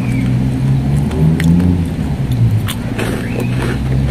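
A motor vehicle engine running close by, a steady low drone whose pitch wavers, with a few sharp crunches of chewing.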